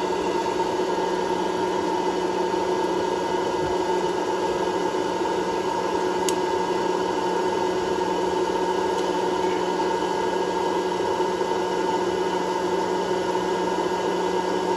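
Hot-air popcorn maker running: its blower fan and motor give a steady whirring hum with a rush of air, heating before any kernels pop. One sharp tick about six seconds in.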